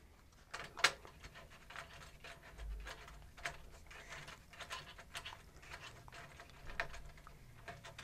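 Faint handling noise: scattered light clicks and taps as a Raspberry Pi rack mount is slid and seated into a small equipment rack.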